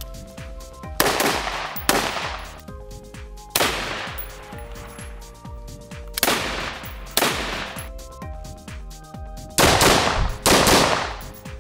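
Rifle shots from a Schmeisser AR-15, fired singly at irregular intervals: about seven sharp reports, each with a short ringing tail, two of them in quick succession near the end. Background music runs underneath.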